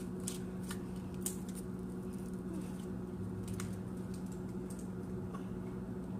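Gold glitter slime with pirate coins mixed in, squished and stretched by hand, giving a few faint sticky clicks and pops, most of them in the first second or so, over a steady low hum.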